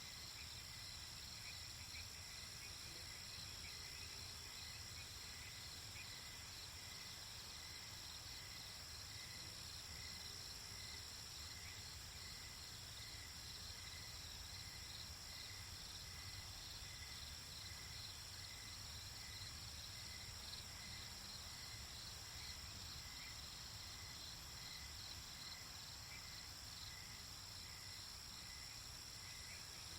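Night insect chorus: crickets and other insects trilling steadily at several high pitches, with one call pulsing regularly about once a second. A few faint low calls, which sound like sporadic frogs, come through over a low background rumble.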